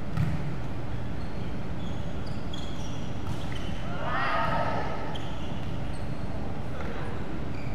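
Volleyball being played on a wooden gym court in a large hall: a dull thump of the ball about a quarter second in, a few short high squeaks of shoes on the floor, and a player's brief call about four seconds in, over a steady hall hum.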